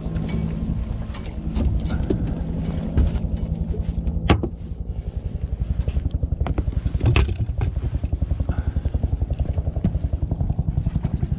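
Boat motor running while trolling, a steady hum until a sharp knock about four seconds in, after which it turns to a quick, even pulsing.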